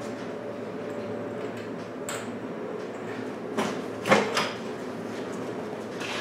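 Front half of a Ford 9N tractor, engine and front axle, rolled forward on its front wheels and a floor jack as the tractor is split from the transmission: a low rolling rumble with a few metal clunks about three and a half to four and a half seconds in, the loudest just after four seconds.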